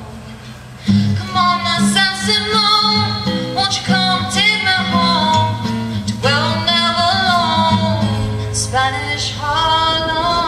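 A woman singing a folk song to her own acoustic guitar. The guitar plays alone at first, and the singing comes in over it about a second in, in phrases a second or two long.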